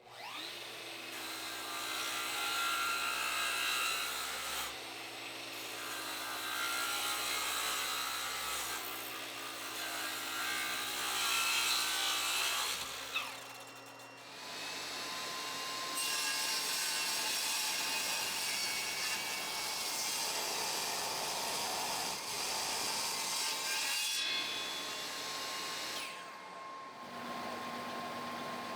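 An electric power tool cutting or shaping wood, its motor humming steadily under the noisy rasp of the wood, in three stretches with brief let-ups about halfway through and near the end.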